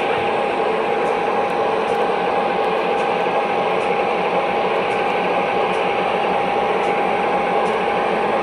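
O gauge model diesel locomotives running, giving a steady mechanical hum and whine with one high tone held throughout and faint light ticks scattered through it.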